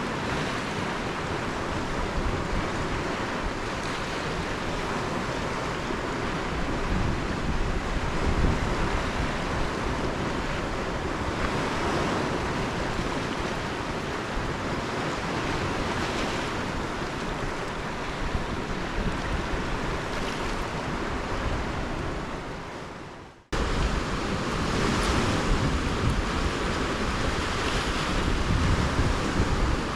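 Waves washing onto a lake shore in slow swells every few seconds, with wind rumbling on the microphone. The sound cuts out abruptly about three-quarters of the way through and resumes at once.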